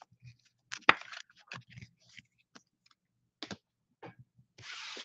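Rigid plastic card top loaders and cards being handled and set down: scattered clicks and taps, the loudest a sharp click about a second in, with a short scraping rustle near the end.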